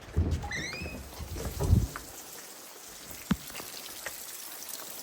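Heavy rain pouring down with a steady hiss. Bumping and rumbling in the first two seconds, a brief squeak about half a second in, and one sharp click a little past the three-second mark.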